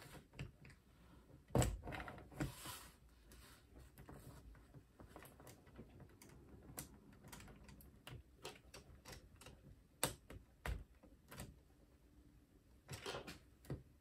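LEGO pieces being handled and fitted: irregular small plastic clicks and taps. The sharpest click comes about a second and a half in, with a cluster of clicks near the end.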